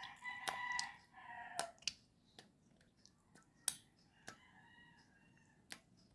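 A rooster crowing faintly in the background for about the first two seconds, with a fainter call later. Scattered light clicks and taps come from the carburetor's accelerator pump and parts being handled.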